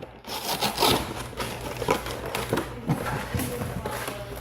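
Irregular rustling and scraping of cardboard and plastic packaging being handled as a trading-card collection box is opened.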